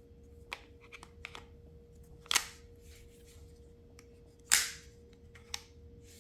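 T4E TR50 CO2-powered .50-calibre launcher, fitted with an 11-joule upgrade valve, being test-fired: two sharp shots about two seconds apart, with lighter mechanical clicks of the action before and after them.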